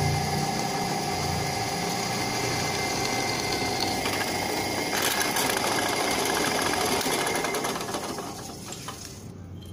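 Bench drill press running, its bit cutting a hole through the steel backing plate of a used disc-brake pad: a steady motor-and-cutting noise that gets quieter near the end as the bit comes out of the metal.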